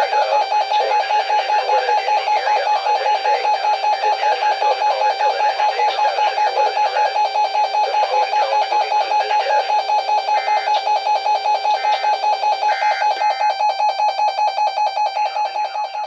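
Weather alert radio alarm stuck sounding after the weekly test: a loud, steady tone pulsing about three to four times a second. A few short, higher beeps break in near the end, and the alarm fades out.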